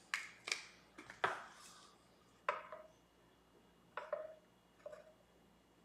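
Steel fret rocker clicking and tapping against guitar frets as it is set down and rocked across them to check for high frets, about eight irregular sharp clicks, some with a short metallic ring.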